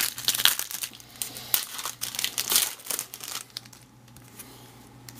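Wrapper of a Topps baseball card pack crinkling and tearing as the pack is opened: a quick run of sharp crackles that dies down after about three and a half seconds.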